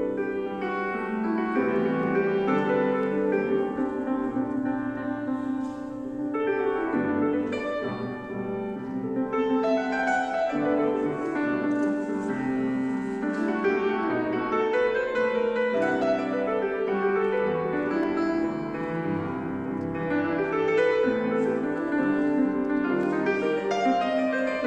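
Solo grand piano played without a break: a jazz piece of chords and melody.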